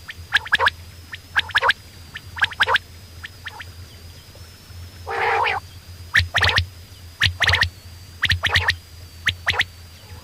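Coturnix quail calling: short, sharp notes in quick groups of two or three, repeated about once a second, with a harsher rasping note about five seconds in. A faint steady hum runs underneath.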